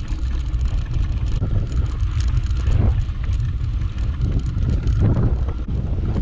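Riding a mountain bike along a rough dirt track: a constant low rumble of wind buffeting the microphone, with tyre noise and scattered knocks as the bike goes over bumps.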